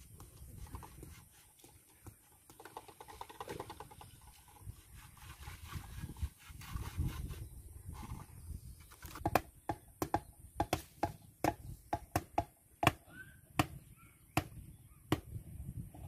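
A low rumble, then from about nine seconds in a run of about a dozen sharp, ringing knocks, close together at first and spacing out near the end. They come from tool work at the base of a steel-and-wood pole being set upright.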